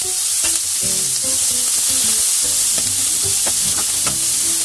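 Sliced onions, garlic cloves, ginger and green chilli sizzling steadily in hot oil in a steel kadai, stirred with a wooden spatula.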